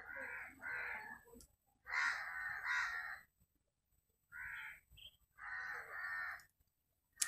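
A crow cawing about six times: two harsh caws in quick succession, another pair about two seconds in, then a short caw and a longer drawn-out one near the end.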